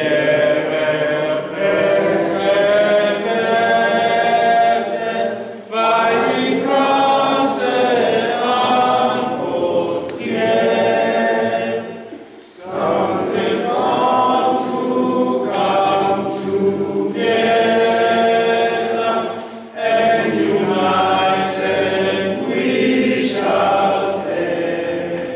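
A group of people singing together unaccompanied, in long phrases of several seconds with brief pauses for breath between them.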